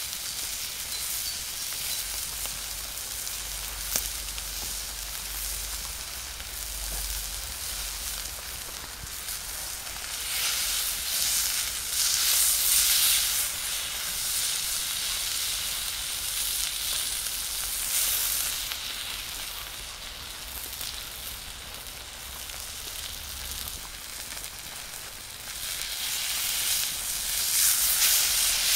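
Tomahawk steak sizzling as it sears on a hot cast iron skillet over a wood fire. The hiss swells louder a few times, strongest about twelve seconds in and near the end, as the steak is handled on the pan.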